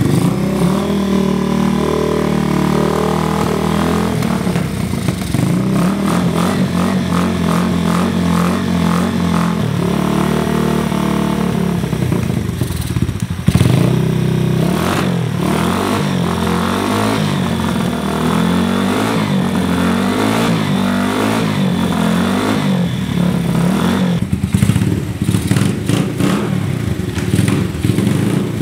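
Yamaha TW single-cylinder four-stroke engine running through an aftermarket stainless full exhaust with a short reverse-cone muffler. It idles, and through the middle there is a run of quick throttle blips, the pitch swinging up and back down about eight times.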